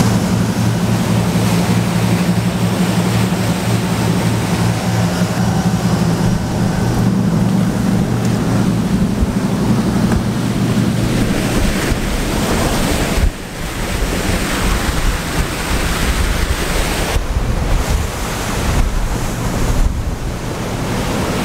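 Motor yacht underway: a steady low engine drone under the rush of its churning wake, with wind buffeting the microphone. The engine drone fades out after about ten seconds, leaving mostly water and wind noise, with a sudden brief drop in level about thirteen seconds in.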